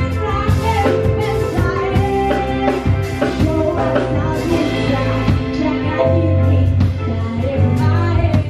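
A woman singing an Indonesian song with a band accompaniment, pitched instruments and drums keeping a steady beat.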